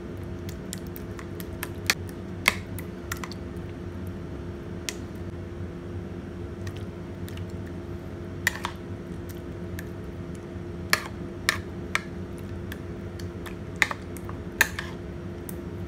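Metal spoon clinking and scraping against a plate at irregular moments as it presses grilled eggplant into beaten egg, over a steady low background hum.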